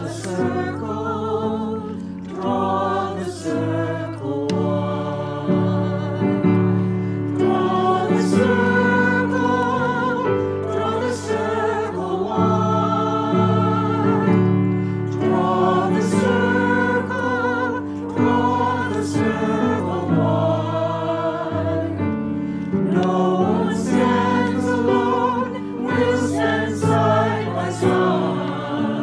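Mixed choir of women's and men's voices singing a hymn in harmony with piano accompaniment, as a virtual choir mixed from separately recorded singers.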